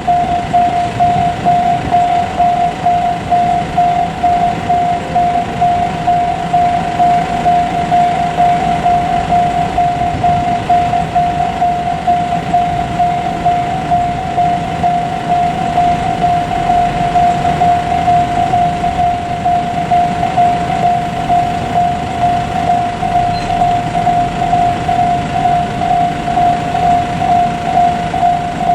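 Japanese level-crossing warning bell ringing, an evenly repeated high tone that never stops, over the low rumble of a freight train passing behind an ED76 electric locomotive.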